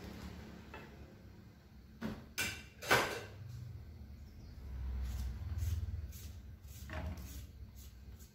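Small kitchen knife cutting pieces off a raw sweet potato held in the hand, a run of short cutting strokes, with three louder sharp knocks about two to three seconds in.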